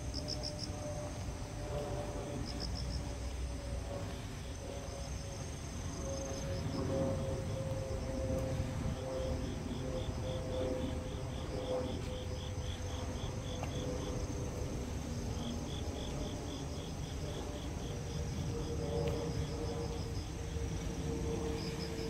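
Insects calling in repeated trains of short high-pitched pulses, several chirps a second, over a steady low rumble.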